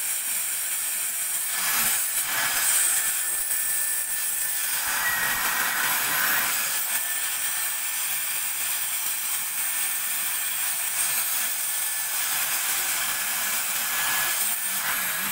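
Cordless Dyson stick vacuum running with its nozzle pressed to the valve of a vacuum compression bag, drawing the air out of the clothes-filled bag: a steady high-pitched whirring hiss that cuts off abruptly at the very end.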